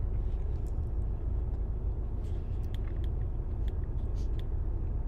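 Steady low rumble of a car heard from inside the cabin, with a few faint clicks and ticks over it.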